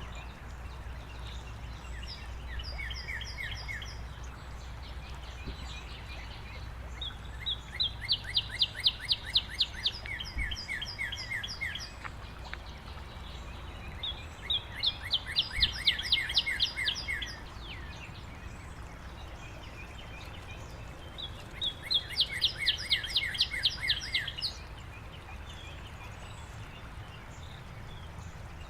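White-breasted nuthatch song: bouts of rapid, evenly repeated notes, about eight a second and each bout a few seconds long. There is a faint short bout near the start and three louder ones spread through the rest, over a steady low background rumble.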